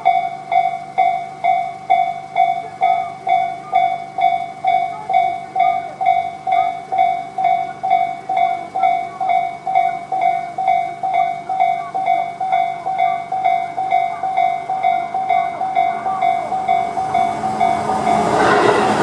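Japanese level-crossing warning bells, Tobu 'sound C' electronic type on both sides, ringing steadily at about two strikes a second. Near the end the noise of an approaching Tobu 10000-series electric train swells up under the bells.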